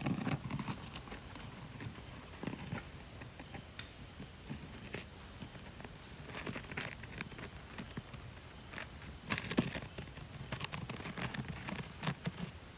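Irregular crunching and crackling steps through dry forest-floor debris, with a few soft thuds, as of something walking near the tent at night.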